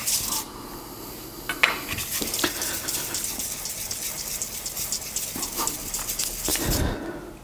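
Metal scraper blade honed back and forth on wet 1000-grit silicon carbide paper over a glass plate: a wet, gritty scratching of repeated strokes that stops shortly before the end.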